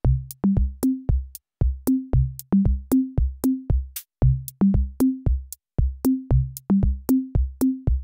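Background electronic music: a drum machine beat of low, pitched drum hits, about four a second, starting suddenly.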